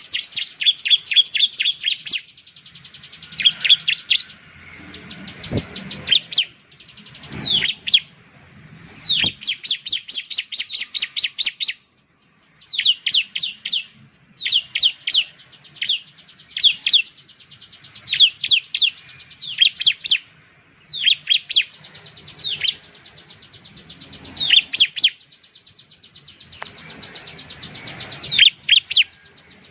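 Bar-winged prinia (ciblek) calling: rapid trains of sharp, high chirps in bursts, mixed with quick downward-sweeping notes, broken by short pauses.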